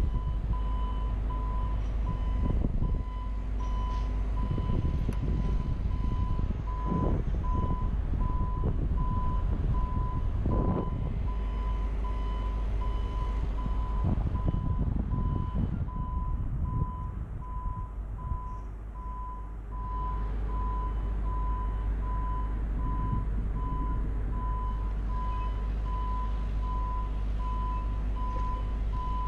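JLG 150HAX boom lift's alarm giving steady, evenly spaced high beeps while the boom is being operated at full height, over a rumble of wind and machine noise.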